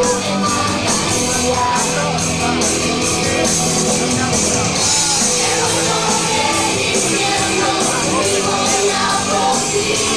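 Punk rock band playing live and loud: electric guitars, drums and shouted singing.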